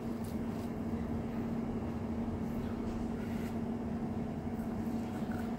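A steady low mechanical hum, such as a kitchen appliance or fan running, with a few faint soft clicks as hands tear and eat the cooked steak.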